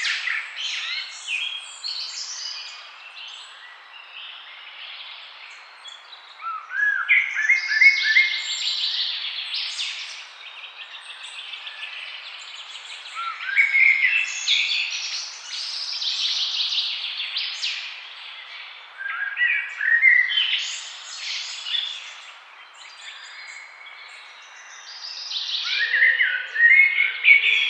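A songbird singing the same song over and over, a phrase about every six seconds. Each phrase opens with a quick run of rising notes and carries on into higher, jumbled twittering for a few seconds, over a steady faint background hiss.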